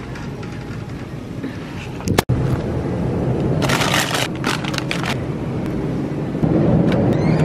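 Steady low store hum, with a sharp click a little after two seconds in. About a second later there is a burst of rustling and a few short knocks as a glass freezer-case door is pulled open and packaged food is handled.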